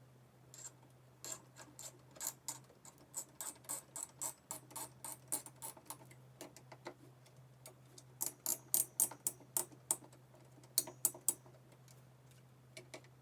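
Screwdriver tightening a CPU cooler's mounting screws into a motherboard: runs of small, quick mechanical clicks in irregular bursts, with a pause around the middle.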